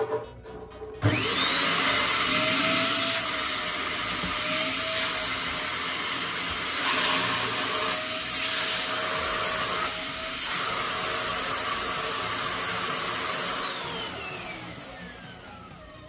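Eureka Forbes Trendy Zip 1000-watt canister vacuum cleaner starting abruptly about a second in, its motor whining up to speed, then running with a loud steady rush of air whose level shifts a few times. Near the end the motor winds down, the whine falling away.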